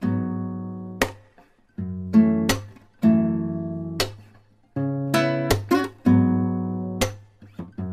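Acoustic guitar music: strummed chords that ring out and fade, with sharp strokes between them.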